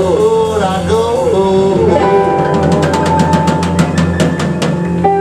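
Live band music with saxophone, electric guitar, keyboard and drum kit: a melody line bends up and down, then holds a long note while the drummer plays a quick run of even cymbal hits about three seconds in, stopping shortly before the end.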